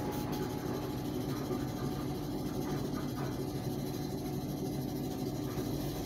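AEG Lavalux twin-tub washing machine running its pulsator: the motor spins the perforated disc in the base of the washtub with a steady hum.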